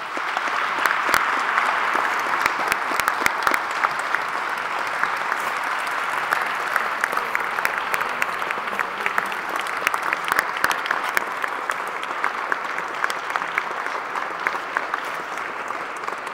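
Audience applauding: many hands clapping together in a dense, steady patter that fades a little over its course.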